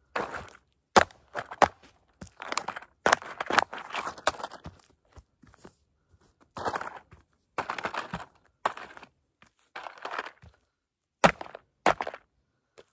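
A toy Grave Digger monster truck cracking and crunching as it is crushed. A series of sharp cracks and longer crunching stretches come with short pauses between them, and the sharpest cracks fall about a second in and near the end.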